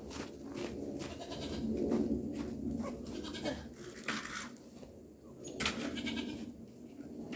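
Goats bleating, several separate calls over a few seconds.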